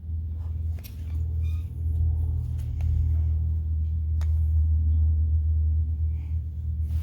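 A steady low rumble, with a few light clicks of small parts being handled.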